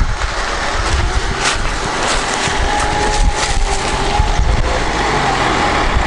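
Lada 4x4 (Niva) engine working under load in first low-range gear as the car climbs a loose sandy slope, its wheels digging into the sand, with a faint whine over the steady rumble. First low is not enough: the car bogs down in the sand.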